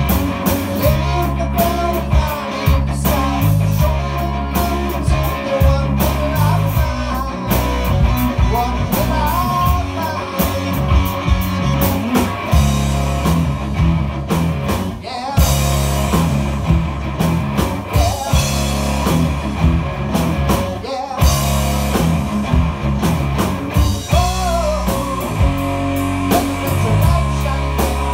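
Live rock band playing loud and continuously: two electric guitars, electric bass and drum kit.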